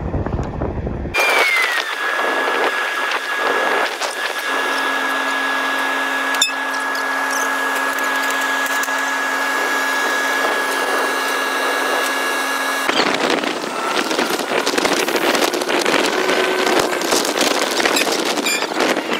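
A steady high mechanical whine with a lower hum beneath it. It starts about a second in, glides down slightly before settling, and stops abruptly about thirteen seconds in. After that comes a noisy rush with rattling, like wind on the microphone and the running of the moving rail vehicle.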